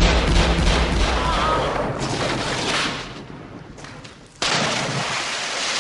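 Film-soundtrack gunfire: loud, dense pistol shots and booms mixed with music, easing off about three seconds in and turning loud again at about four and a half seconds.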